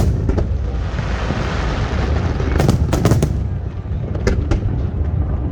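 Aerial fireworks bursting: sharp bangs, with a cluster of several about halfway through and two more later, crackling between them and a continuous low rumble of shells going off.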